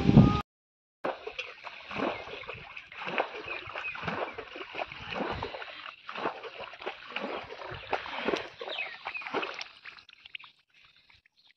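Shallow muddy water splashing and gurgling in quick, irregular small bursts, starting about a second in and fading out near the end.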